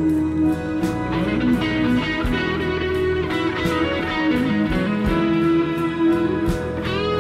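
Background music: a guitar-led instrumental with gliding, sliding notes over a steady beat.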